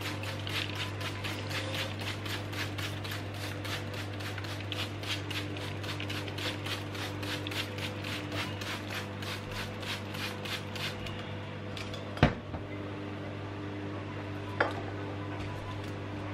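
Trigger spray bottle squirting water in quick repeated pumps, about three a second, misting the pans of a watercolour paint box. The spraying stops about eleven seconds in. A sharp knock follows about a second later, and a lighter one a couple of seconds after that.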